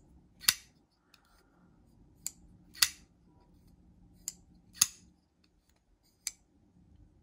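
Cheburkov Small Strizh folding knife flicked open and closed again and again: sharp metallic clicks of the blade leaving the detent and locking up. They come in pairs about every two seconds, a lighter click and then a louder snap half a second later.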